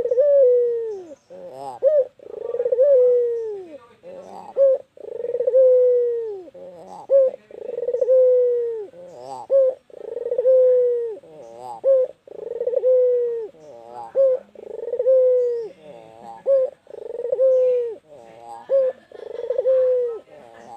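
White Barbary dove (ringneck dove) cooing over and over, about one long coo every two seconds. Each coo is held, then drops in pitch at the end, with short wavering notes between some of them.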